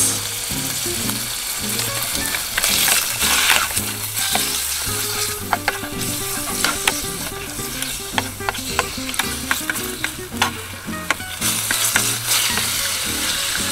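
Sliced pork sizzling in sesame oil in a 1000 ml anodized aluminium mess tin, stirred with chopsticks that click against the tin now and then. Background music plays underneath.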